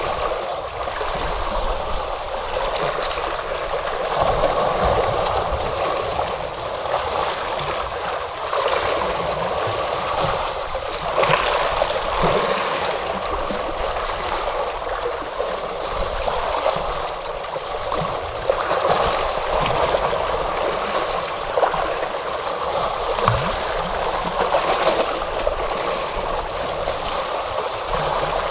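Moving water washing and gurgling continuously, with small splashes and gentle surges in loudness every few seconds.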